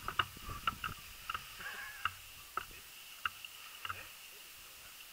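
About a dozen faint, sharp clicks at irregular intervals, each with a short ring, over quiet outdoor background.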